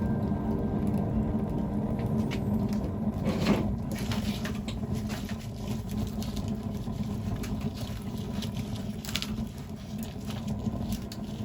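Campfire burning with a steady low rumble and scattered crackles and pops from the burning wood. The loudest pop comes about three and a half seconds in.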